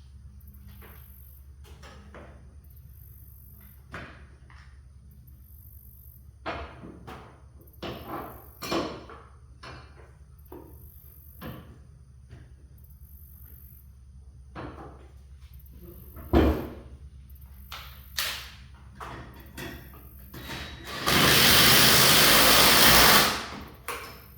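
Scattered knocks and clatter of tools and hardware being handled, then near the end a power driver runs hard for about two seconds, driving a 4-inch lag screw into wood.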